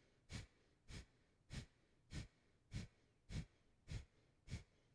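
Kapalabhati breathing: a woman's quick, forceful exhales through the nose, driven by the belly pumping in. About eight short puffs, evenly spaced, a little under two a second.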